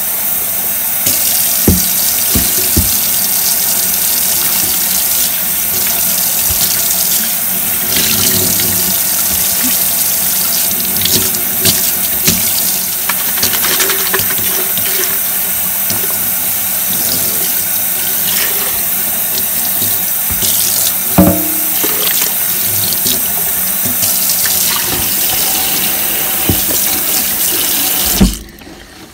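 Kitchen tap running steadily, the stream splashing into and over a plastic cup in a stainless steel sink, with a few short knocks along the way. The water stops near the end.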